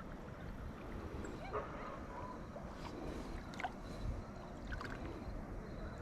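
Kayak being paddled: water splashing and dripping off the paddle, with a few short knocks around the middle, over a steady low rumble.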